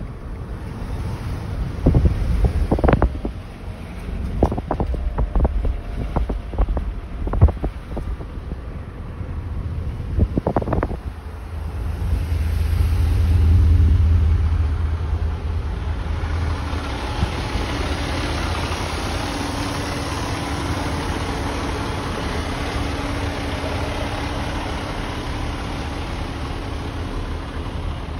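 Wind buffeting the microphone with a few sharp knocks in the first half. About halfway through, a Pierce fire engine's diesel comes in as a low rumble that swells and eases, then settles into a steady idle with a faint hum.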